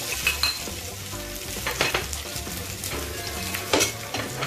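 Sliced sausage sizzling in a little oil in a hot frying pan, with a few short scrapes and clatters of a spatula against the pan and plate.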